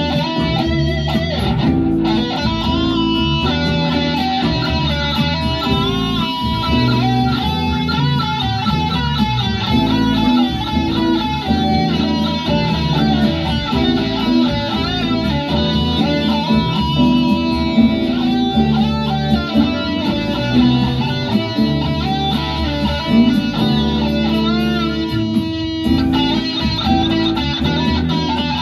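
Electric guitar, a sunburst Les Paul-style solid-body, played loud and distorted-free of speech: a melodic lead with bent and wavering notes over sustained chords.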